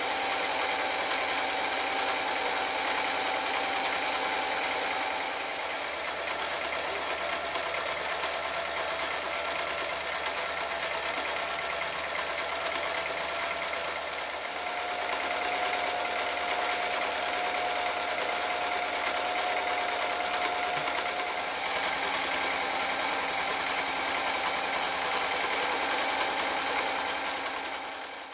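Toyota 9090 electric sewing machine running continuously, its needle stitching decorative patterns through fabric, the motor tone shifting in pitch a few times as the speed changes. It stops near the end.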